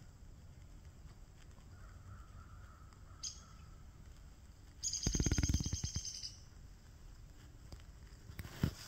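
An animal's rapid chattering call, loud and about a second long, starting about five seconds in, with a short high chirp a couple of seconds before it.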